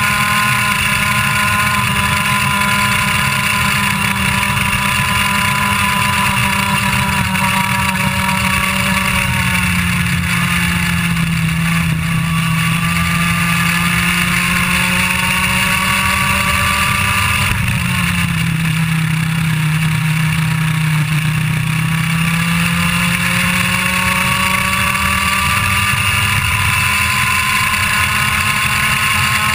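IAME Leopard 125cc two-stroke kart engine running hard at high revs. Its pitch sags twice as the kart slows through corners, then climbs steadily again near the end.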